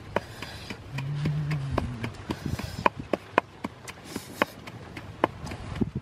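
Pestle pounding in a small mortar: a series of sharp, irregular knocks, roughly one or two a second.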